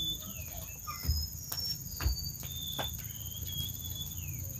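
Steady high-pitched drone of forest insects, with short high chirps over it and a few light clicks.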